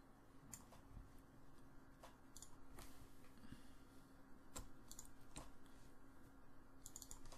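Computer mouse buttons clicking now and then, a few single clicks and some quick pairs, over a faint steady hum.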